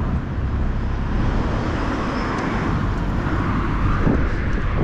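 Road traffic going past, a steady rush of vehicle noise that swells a little near the end.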